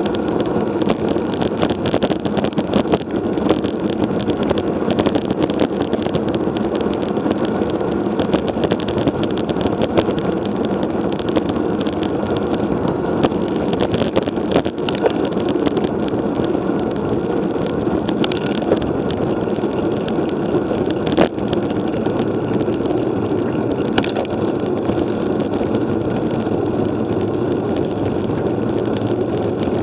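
Steady road rumble and wind on the microphone of a camera riding on a road bicycle, with frequent small knocks and rattles from the road surface.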